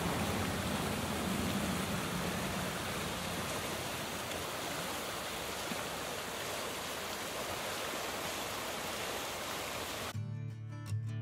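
Shallow river rushing over rocks and rapids: a steady, even rush of water. It cuts off abruptly about ten seconds in, and music begins.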